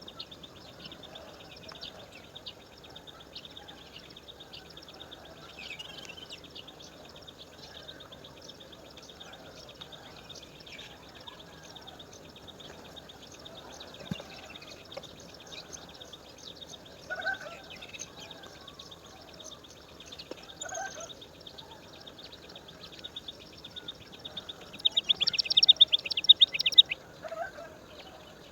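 Birds calling: a steady, fast-pulsing high buzz runs throughout, with short lower calls every few seconds and a loud run of rapid high notes near the end.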